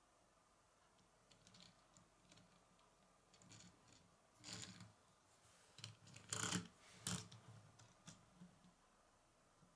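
Faint clicks and short scrapes of a small Lego car being handled and pushed across a wooden surface, its plastic wheels rolling on the wood. The loudest come in a cluster a little past the middle.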